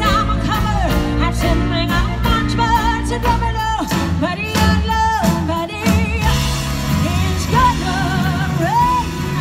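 A woman singing live into a microphone over a live band, holding long notes with vibrato and ending on a long high held note.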